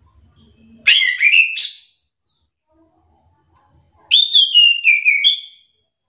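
Chestnut-capped thrush singing two short phrases of clear whistled notes, about a second in and again about four seconds in. The second phrase steps down in pitch and ends on a higher note.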